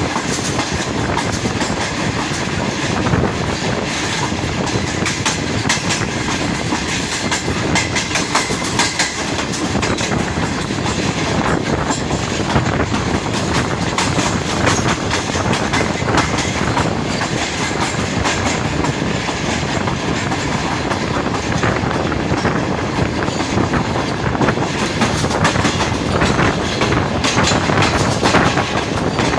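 Karakoram Express passenger train running through without stopping: wheels clattering over rail joints as a steady rumble with frequent sharp clicks.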